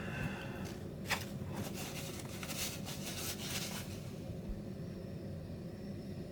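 A person sniffing at a scent, a run of short noisy sniffs over a few seconds, over a low steady room hum.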